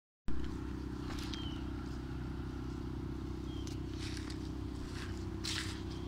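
A steady low hum like a running engine or machine, with a few footsteps or rustles near the middle and end and two brief high chirps.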